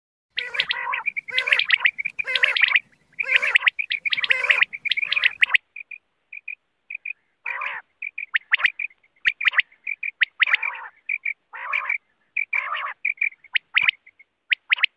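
Common quail calling over and over: loud repeated phrases about once a second for the first five seconds, then quicker, thinner notes in short groups between further phrases.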